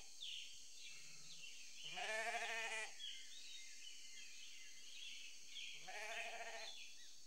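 Sheep bleating twice, each bleat about a second long, the first a little after the start and the second near the end, with faint high chirping throughout.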